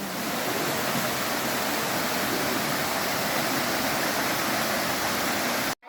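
Waterfall pouring into a rocky gorge pool: a steady, even rush of water that cuts off abruptly near the end.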